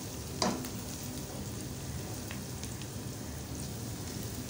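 Sliced onions sizzling in hot oil in a steel pot as they brown, stirred with a wooden spoon; one brief knock about half a second in.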